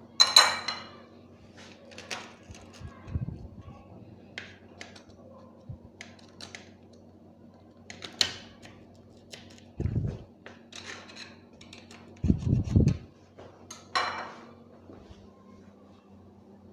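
Pizza cutter wheel slicing through a baked pizza, with scattered sharp clicks and a few dull low thumps over a faint steady hum.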